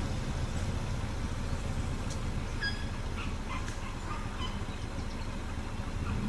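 Steady low hum of an idling vehicle engine, with several short forest bird chirps scattered over it from about two seconds in.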